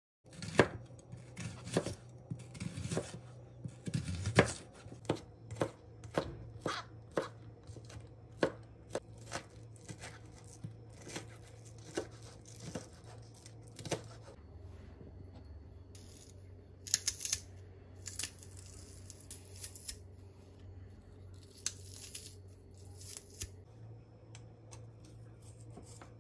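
Food being chopped with a knife on a cutting board, as irregular sharp knocks about two a second for the first fourteen seconds. After that come scattered knocks and a few short rustling noises.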